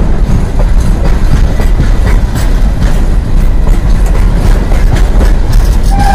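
Loaded container wagons of a freight train rolling past close by: a loud, steady rumble of steel wheels on rail, with irregular clicks of the wheels over the rail joints.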